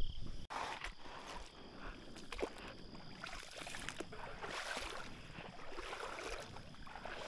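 A person wading through a creek: water sloshing and splashing around the legs with each step.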